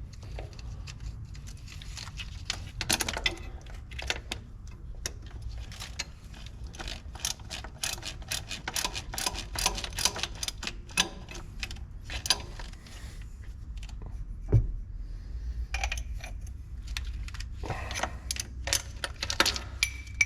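Hand tools clicking and clinking against metal parts in a run of irregular short strokes, with a few louder knocks, over a steady low hum.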